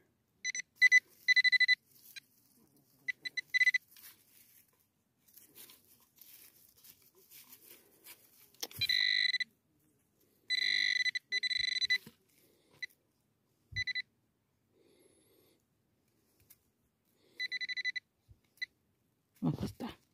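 Metal detector beeping with one fixed high tone over a deep buried target: clusters of short beeps, a few longer beeps in the middle, and a last group near the end.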